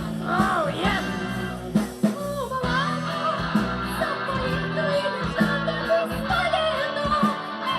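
A band playing an upbeat rock-and-roll arrangement, with a steady beat, bass and guitar, and a wavering melody line on top.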